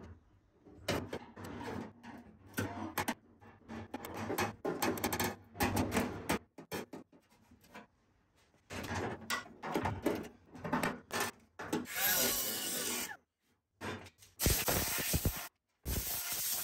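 Rusted sheet metal of a 1967 Chevy C10's lower inner cowl being scraped and worked, in irregular rasping bursts with short gaps, a few of them lasting about a second.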